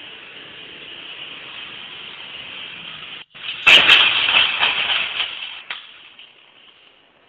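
Yamaha Exciter motorbike crashing into a taxi: a loud sudden impact about three and a half seconds in, followed by about two seconds of clattering and scraping that dies away. Before the crash there is only a steady hiss.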